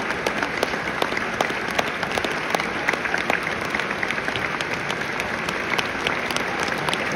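Football crowd in a stadium applauding steadily, many individual claps throughout.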